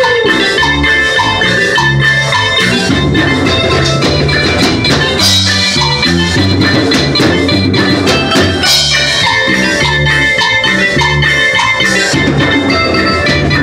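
Live band playing instrumental music: an electronic keyboard carrying the melody over acoustic guitar and a steady drum beat, loud through a PA speaker.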